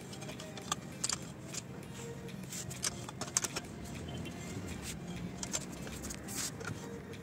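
Light metallic clicks and rattles, scattered irregularly, from a homemade drill press stand as its feed lever is worked and the drill carriage moves on the column.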